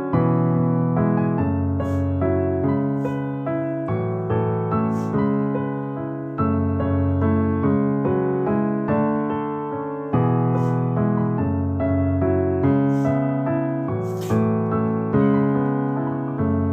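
Slow piano music: chords and notes struck about once every second or two and left to ring and fade.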